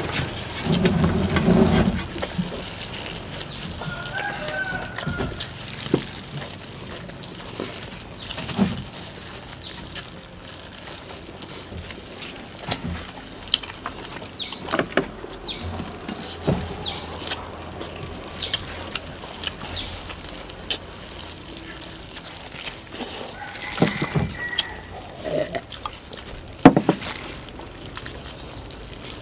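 A rooster crowing and chickens clucking, over scattered sharp clicks and knocks; the loudest knock comes near the end.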